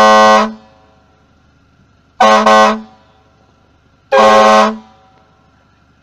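Car-mounted air horn blasting three times, each about half a second long; the second blast is broken into two quick pulses. A short echo fades after each blast.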